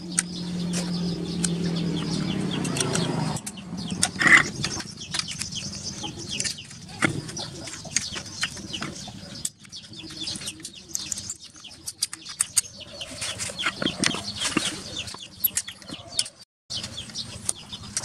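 Clicks, knocks and metallic taps of a spanner and hands working the clamp bolts on a submersible water pump's plastic housing. A steady low hum runs through the first few seconds.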